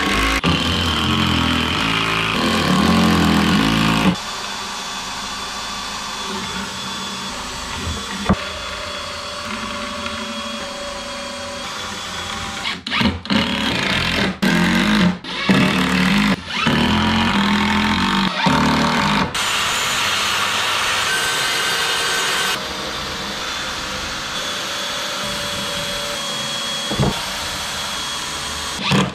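Power tools running in a series of short clips cut one after another, each with its own steady machine noise, with abrupt changes between them.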